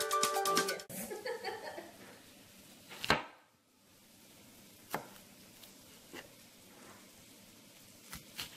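Kitchen knife chopping white onion on a plastic cutting board: a few separate knocks of the blade against the board, the loudest about three seconds in. Music plays at the start and cuts off about a second in.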